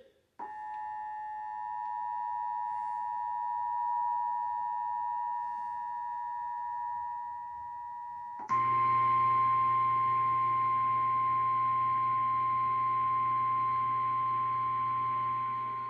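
Emergency Alert System attention signal: a steady two-tone alarm (853 and 960 Hz) for about eight seconds. It then switches to a single steady, slightly higher tone, the National Weather Service 1050 Hz warning alert tone, with a low hum beneath it that continues to the end.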